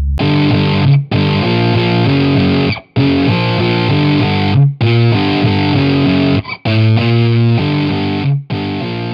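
Music: a distorted electric guitar riff in blocks of about two seconds, each cut off abruptly by a brief gap.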